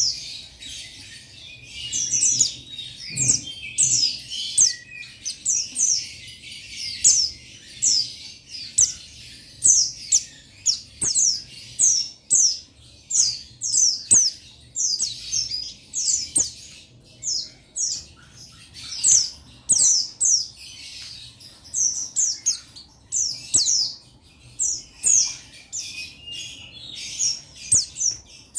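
Male buxtoni white-eye (pleci) singing a chattering song of rapid, high, falling notes in runs with short pauses. It is a male's call to rivals.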